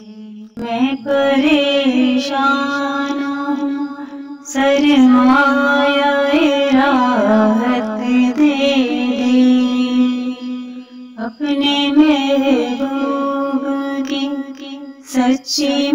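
Background song: a voice singing a wavering, ornamented melody over a steady low drone, with brief pauses between phrases.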